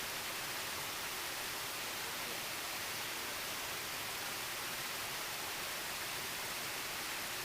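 Steady rushing of a mountain stream, an even hiss of water with no distinct splashes or other events.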